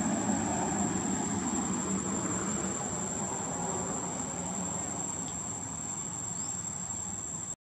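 Insects droning at one steady high pitch over a low, even background hiss, cutting off abruptly near the end.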